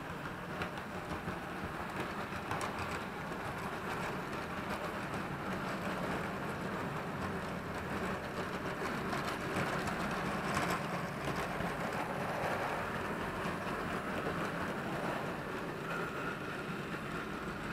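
Model railway trains running along the track: a steady whirr with scattered light clicks from the wheels and motors.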